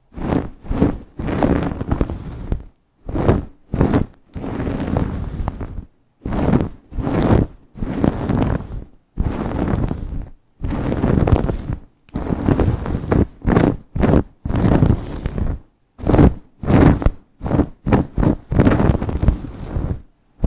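Long fingernails scratching and rubbing fast through hair on the scalp: quick, irregular bursts of scratchy rustling broken by brief silent gaps.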